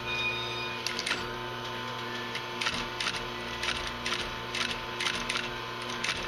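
Industrial walking-foot sewing machine stitching through doubled leather, clacking in a slow, even rhythm of about two stitches a second over a steady hum.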